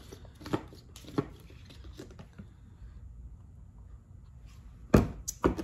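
Plastic handling sounds from the Tupperware Urban Max portable blender as its blending base is twisted off the cup: a few faint clicks, then two sharper plastic knocks near the end as the base is set down on the stone counter.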